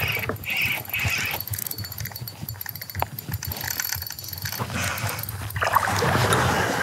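A spinning reel and kayak gear clicking and rattling while a hooked bass is reeled in beside a kayak, with water splashing louder near the end as the fish comes to the net.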